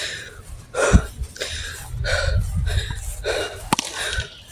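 Quick, heavy breathing close to the microphone, about two breaths a second, with a sharp click near the end.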